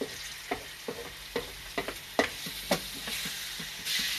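Pork frying in a hot pan with garlic and onion, sizzling steadily while a utensil stirs and taps against the pan about twice a second. Near the end the sizzle flares into a louder hiss.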